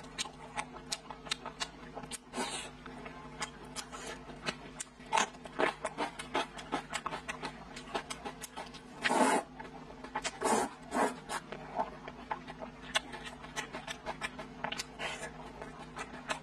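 Close-miked eating: wet chewing and lip-smacking on braised pork belly and noodles, many small clicks. About nine seconds in comes a longer, louder noodle slurp, and there are shorter slurps near ten and eleven seconds, over a faint steady hum.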